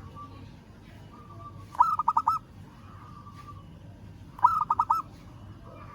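Zebra dove (local perkutut) cooing: two quick phrases of four or five rapid staccato notes, about two and a half seconds apart, with soft quiet notes between them. This is its call to a rival.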